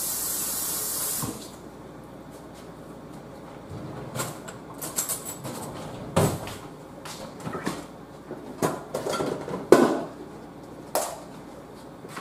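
A loud hiss, like a spray, cuts off about a second in. Then come scattered kitchen handling sounds, knocks and clatter, with a few sharper knocks in the second half.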